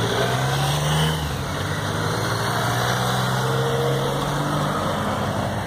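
Escort motorcycles rolling slowly past at low revs, their engines giving a steady low note that ends about five seconds in.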